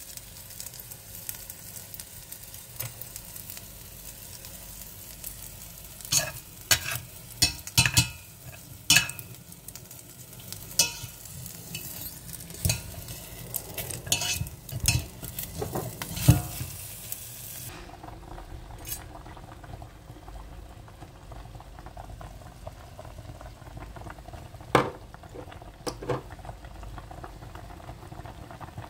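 Whole chicken browning in hot oil in a stainless steel pot, sizzling steadily, with scattered knocks and clicks against the pot, most of them in the middle stretch. The high hiss of the frying drops away about two thirds of the way through.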